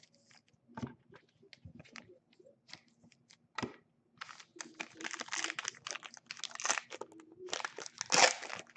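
A few light clicks and taps of handling, then from about halfway in a sealed trading-card pack wrapper being torn open and crinkled.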